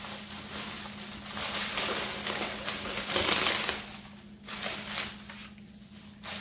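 Plastic wrapping crinkling as it is handled and pulled at. The crackling peaks about three seconds in, then dies down to a few faint rustles.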